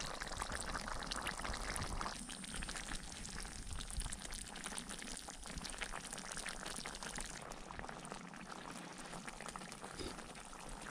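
Coconut-milk chicken sauce boiling in a wok, a steady fine bubbling crackle, a little quieter after about two seconds.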